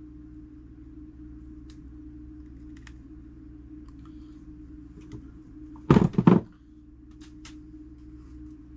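Small hand tools clicking and tapping on clock parts at a workbench over a steady low hum, with one louder double knock about six seconds in.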